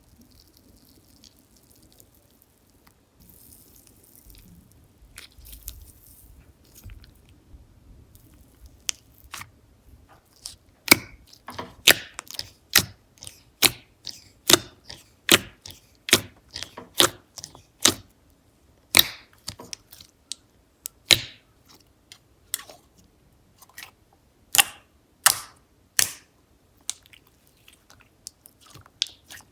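Slime being squeezed and stretched by hand. Faint, soft handling at first, then from about ten seconds in a run of sharp popping clicks, one or two a second, as air pockets in the slime burst.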